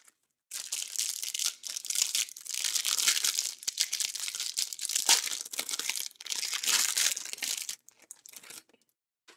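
Clear plastic cellophane wrapper being torn open and peeled off a pack of trading cards, crinkling continuously and stopping about eight seconds in, with a few faint crackles after.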